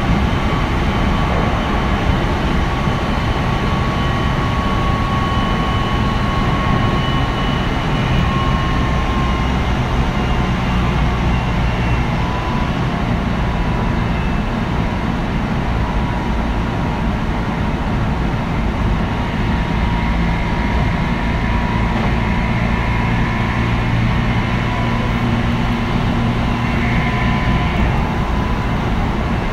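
Meitetsu 3100-series electric train running on the line, heard from on board: the low rumble of wheels and traction motors with the thin whine of its Toshiba IGBT-VVVF inverter, which slowly shifts in pitch.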